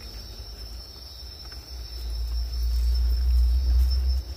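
Crickets chirring steadily in a high-pitched night chorus. A low rumble builds from about halfway, becomes the loudest sound, and cuts off suddenly just before the end.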